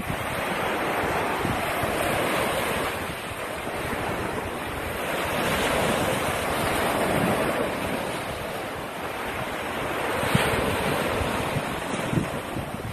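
Sea waves breaking and washing up the shore in the shallows, the surge swelling and easing every few seconds, with wind buffeting the microphone.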